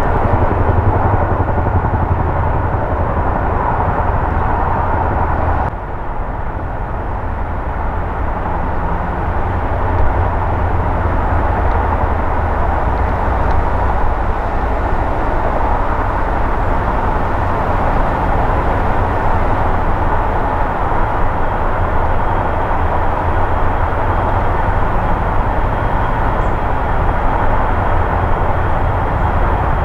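NH90 twin-turbine helicopter running on the ground at a distance: a steady blend of engine whine and rotor thrum, with a slight drop in level about six seconds in.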